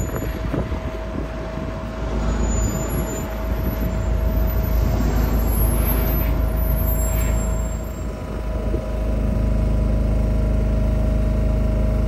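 A heavy lorry on the move: a low engine and road rumble with a steady hum over it, evening out into a constant drone in the last few seconds.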